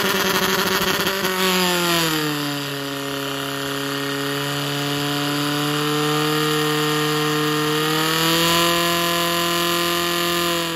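Portable fire pump engine running at high revs to drive water through the attack hoses. Its pitch sags a little about two seconds in, holds steady, then rises slightly near the end.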